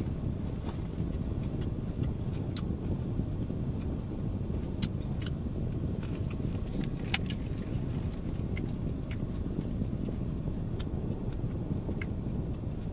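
Steady low rumble of car road noise inside a moving car's cabin, with a few light clicks and taps scattered through it.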